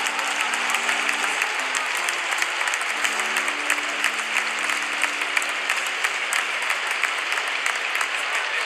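A large audience applauding continuously, a dense patter of many hands clapping, with music faintly underneath.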